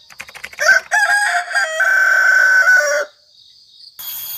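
A rooster crowing: a few short clucks, then one long crow lasting about two seconds. Near the end a steady high hiss of outdoor ambience sets in.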